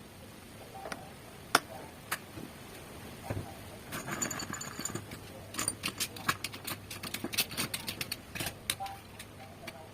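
Clicks and taps of small hard parts being handled: one sharp click about a second and a half in, a short scrape a few seconds later, then a run of quick, irregular clicks and rattles through the second half.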